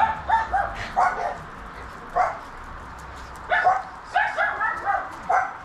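Maltese dog barking in short, high-pitched yaps: a few near the start, a pause, then a quick string of barks in the second half.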